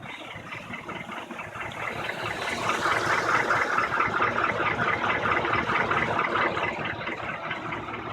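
A 2003 GMC Envoy's 5.3-litre V8 idling hot with a fast, steady slapping knock from its pistons. This is piston slap, which the owner says has been there for years without harm. The knocking grows louder about two seconds in and eases a little near the end.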